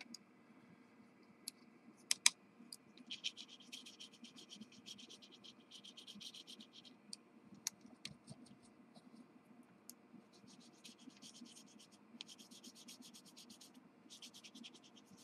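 Faint scratchy strokes of a Faber-Castell Gelato colour stick rubbed on wet paper, coming in runs of a second or two, with a couple of sharp clicks about two seconds in.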